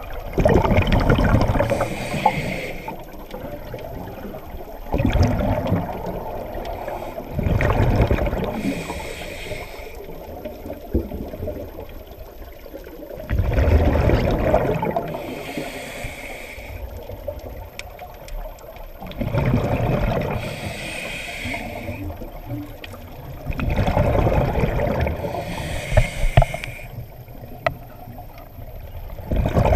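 Scuba diver breathing through a regulator underwater: each breath brings a hiss and a rush of exhaled bubbles, repeating about every six seconds, five times.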